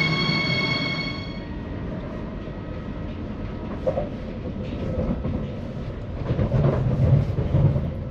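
Rhein-Ruhr Express electric regional train running, a steady rumble of the carriage with some rattles. A high steady whine stops abruptly in the first second or so, and the rumble swells near the end.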